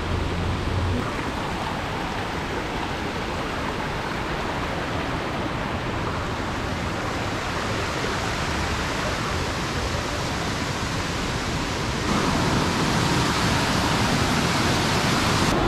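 Rushing water of a waterfall and the rocky stream below it: a steady rushing hiss that becomes louder about twelve seconds in.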